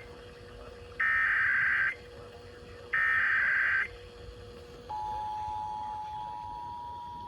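Emergency Alert System data bursts: two harsh, buzzing one-second bursts about a second apart, followed about five seconds in by the steady EAS two-tone attention signal. It opens a Child Abduction Emergency (AMBER Alert) broadcast.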